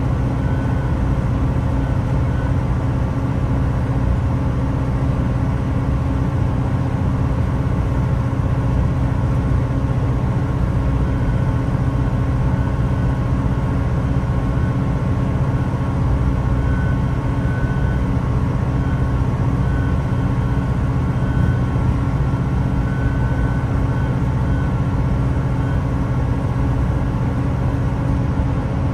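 Great Western Railway Class 166 diesel multiple unit heard from inside the carriage: its underfloor diesel engines running with a steady low hum and even tones, holding a constant pitch.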